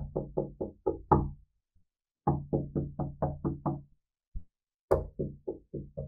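Knocking on a wooden door in quick runs of about six to eight raps, with short pauses between the runs and one lone faint knock in the middle. Each rap has a hollow, ringing tone.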